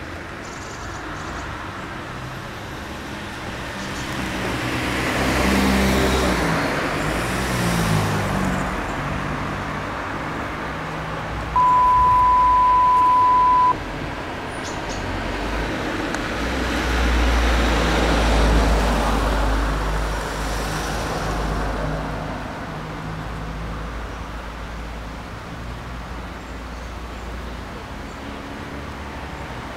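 Road traffic and vehicle engine noise, swelling twice. About twelve seconds in, a steady 1 kHz censor bleep sounds for about two seconds.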